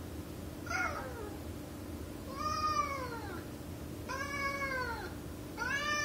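Tabby cat meowing four times: a short call about a second in, then three longer meows, each rising then falling in pitch, about every second and a half.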